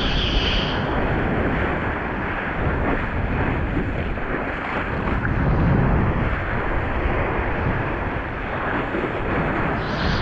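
Strong storm wind buffeting the microphone, with the rush of breaking surf underneath.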